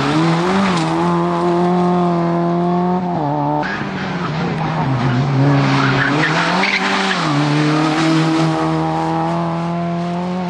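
Rally car engines held at high revs, the pitch dipping and climbing again a few times as the drivers lift off and shift, with the sound jumping at cuts between cars. Tyres squeal briefly about two-thirds of the way through.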